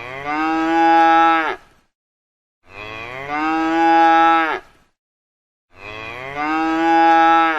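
A cow mooing three times, each call lasting about two seconds, holding a steady pitch and dropping off at the end.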